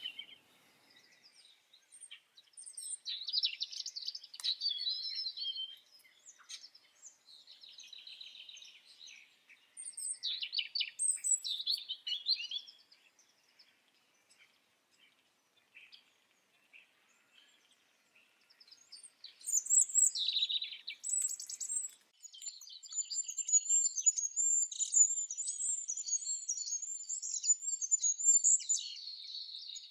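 Songbirds singing: several short bursts of high chirping phrases in the first half, a pause of a few seconds, then near-continuous high-pitched twittering through the last third.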